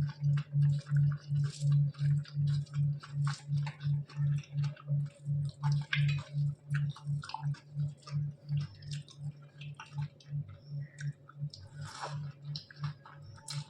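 Close-miked chewing of soft rice and curry: a steady rhythm of about two to three chews a second, with wet mouth clicks and smacks. The chews grow somewhat quieter in the second half.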